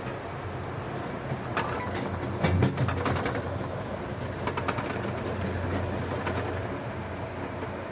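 Amtrak passenger train rolling over jointed track and switches: a steady low rumble with several short runs of wheel clicks and clacks, the loudest about two and a half seconds in.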